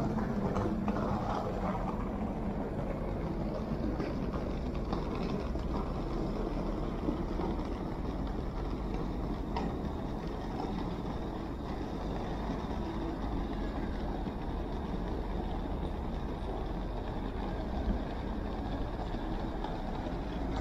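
City street traffic: a steady hum of passing vehicles with a few faint brief clicks.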